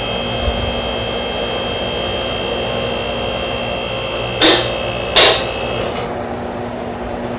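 BendPak MaxJax lift's electric-hydraulic power unit running steadily as it raises a Ford Expedition EL, a low hum with a high whine over it. Two loud sharp clacks come about four and a half and five seconds in, and a lighter one just after.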